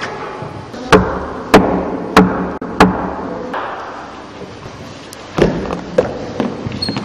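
Four loud knocks on a door, evenly spaced a little over half a second apart, each ringing out in the echo of a large church. Two softer thuds follow near the end.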